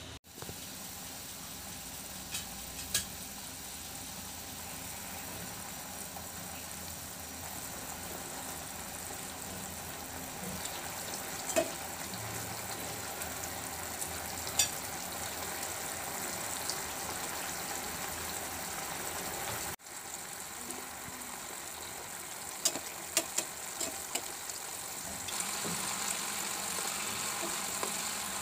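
Mustard-paste gravy bubbling and sizzling in a frying pan with fried hilsa steaks in it, a steady hiss broken by occasional sharp clicks and pops.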